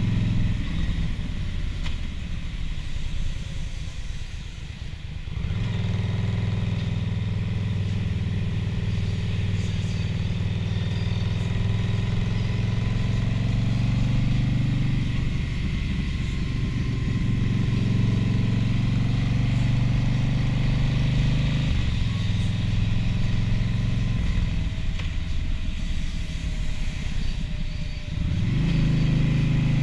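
Touring motorcycle's engine running at road speed with wind noise. The throttle eases off for a few seconds and opens again about five seconds in; near the end it dips briefly and revs back up.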